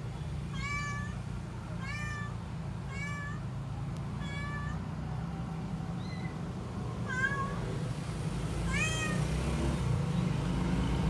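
Tabby cat meowing repeatedly: about six short meows, each rising then falling in pitch, roughly one every second or two.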